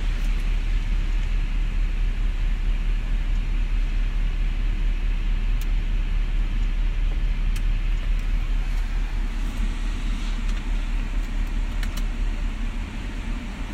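Audi A7's engine idling steadily, a low even rumble, with a few faint clicks.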